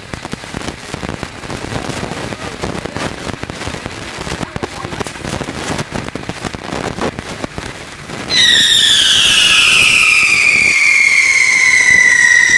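Fireworks: a ground fountain crackles densely for about eight seconds. Then a loud, shrill whistle from a whistling firework climbing into the sky starts suddenly and slowly falls in pitch.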